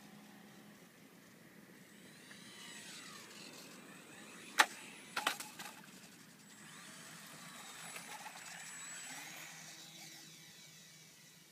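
E-flite UMX Carbon Cub's small electric motor and propeller whining, the pitch rising and falling with the throttle. About halfway through comes a sharp clack and a short clatter as the plane touches down on pavement. After that the motor whines again briefly as the plane rolls along the ground.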